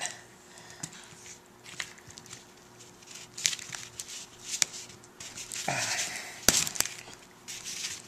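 Hands handling a plastic MacBook MagSafe power adapter casing as it is pressed shut and taped: scattered clicks and knocks of plastic. A stretch of rustling comes near the end as the tape is worked onto it.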